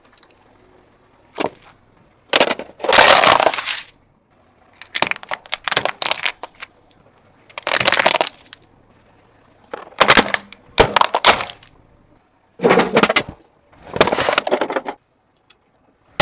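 A car tyre rolling over and crushing a run of objects one after another: about seven separate bouts of cracking and crunching, each up to a second long, with short quiet gaps between them.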